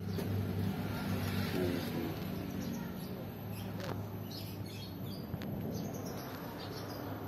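A steady low hum throughout, with a few short, faint bird chirps about halfway through.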